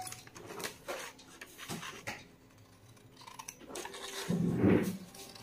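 Large scissors snipping through sheets of paper, with the paper rustling as it is handled; a louder handling noise comes about four and a half seconds in.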